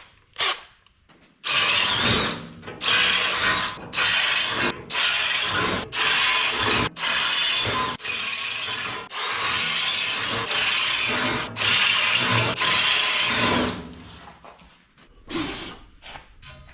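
Power drill with a step bit enlarging bolt holes to 1/4 inch through primed and painted metal, run in a series of short bursts of about a second each with brief pauses between, which stop about three seconds before the end.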